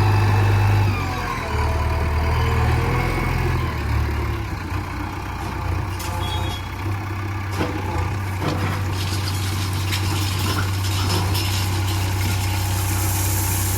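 Heavy diesel engine running steadily, with a few sharp knocks in the second half.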